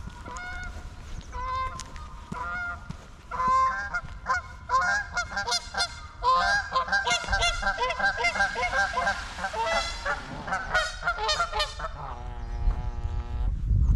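A flock of geese honking, the calls sparse at first, then thick and overlapping through the middle, with a longer, lower call near the end.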